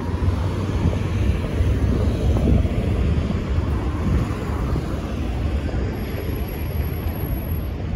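City street traffic: cars driving past a street crossing, a steady noisy wash with a strong low rumble.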